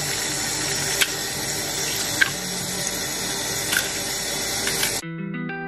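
Tap water running steadily into a stainless steel sink over green bananas as they are peeled by hand, with a few sharp clicks. Near the end the water cuts off suddenly and music with held notes begins.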